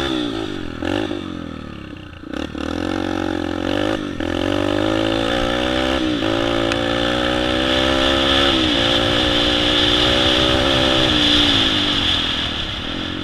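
Yamaha TTR-125 dirt bike's single-cylinder four-stroke engine, fitted with a full FMF exhaust, accelerating along a trail. Its revs climb and drop back several times as it shifts up through the gears, then hold high and ease off near the end.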